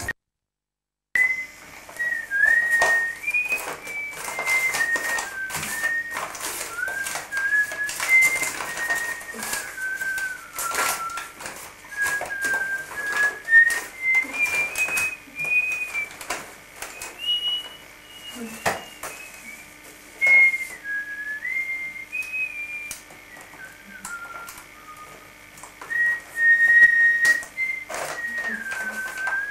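A person whistling a slow tune, one clear note stepping to the next, starting about a second in. Beneath it, wrapping paper rustles and crinkles as it is handled and cut.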